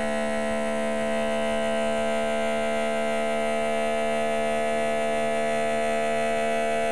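Small electric motor running at a steady speed: a constant hum made of several fixed pitches that does not change.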